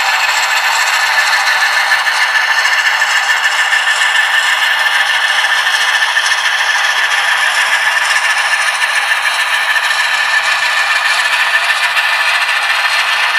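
Sound-equipped model locomotive's speaker playing a recorded Alco 539 diesel prime mover sound, running steadily at raised throttle. It sounds thin, with almost no low end, as through a small speaker.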